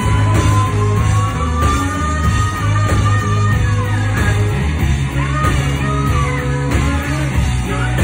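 Live rock band playing loud: electric guitar, bass and drums with a woman singing. A long high note is held over the first three seconds, slowly rising.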